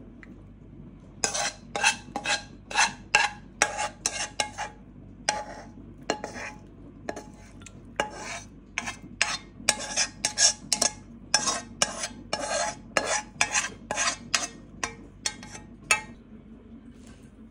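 Silicone spatula scraping curry out of a metal pan into a bowl: a quick run of short scrapes, about two a second, starting about a second in and stopping near the end.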